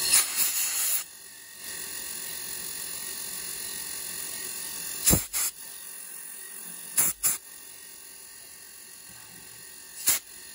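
Taig CNC mill spindle running steadily at high speed while a small high-speed steel drill feeds slowly into aluminium, drilling tap holes for 2-56 threads. Short blasts of compressed air from a blow gun clear the chips: one about a second long at the start, two quick pairs around five and seven seconds in, and one more near the end.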